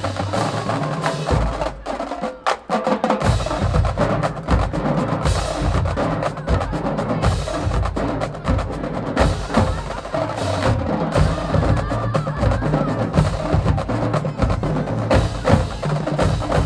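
Marching band drumline playing a cadence: fast snare strokes and rolls over low bass drum hits at several pitches, with the low drums dropping out for about a second near the start.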